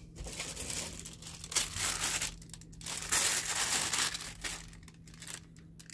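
Clear plastic packaging bag crinkling as it is pulled off a newly unboxed part, in irregular rustling bursts, loudest around the middle.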